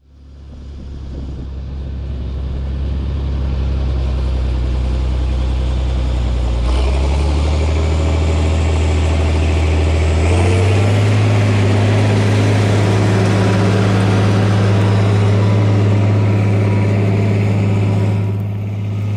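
International Harvester tractor's diesel engine pulling a plow under load: a steady drone that steps up in pitch twice as the tractor comes close. In the second half, a rising hiss and rustle of the plow's discs cutting through crop stubble and soil joins it, easing near the end.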